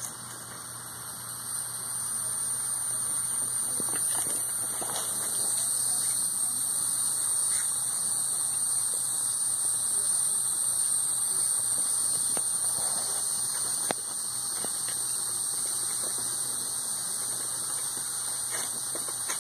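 A steady low hum under a constant high-pitched hiss, with a few faint knocks.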